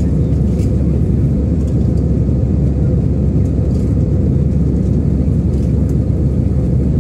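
Steady low rumble of an Airbus A320's engines and airflow heard inside the passenger cabin during the climb after takeoff.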